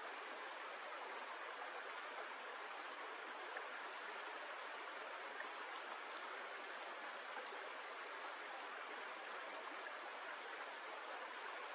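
Steady rush of flowing stream water, with faint high ticks recurring irregularly over it.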